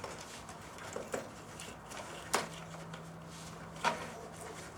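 Light handling noises from a fuel pump relay and its mounting being set back in place: a few small clicks and knocks, the two sharpest about a second and a half apart.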